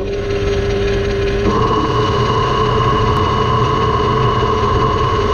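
Metal lathe switched on and running steadily with a hum. About one and a half seconds in, a higher steady tone joins as the tool takes a light facing cut across the backgear blank.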